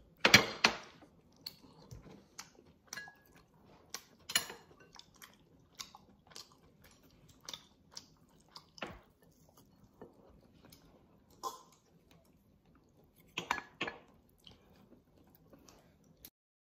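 Close-up chewing and mouth sounds of a person eating sweet-and-sour pork ribs: irregular short smacks and clicks, the loudest just after the start and again about thirteen seconds in.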